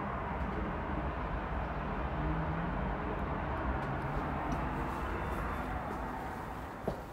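Steady, distant city traffic noise with a low rumble of wind on the microphone. It fades near the end, and a single click sounds just before the end.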